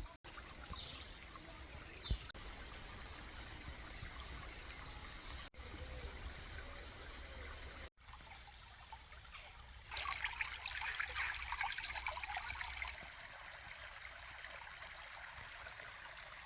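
A small burn trickling and splashing over stones, steady throughout except for three momentary breaks. The water is louder for about three seconds near the middle.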